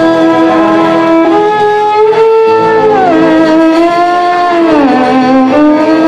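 Amplified fiddle playing a melody of long held notes, sliding down in pitch about three seconds in and again near five seconds, with a live band behind it.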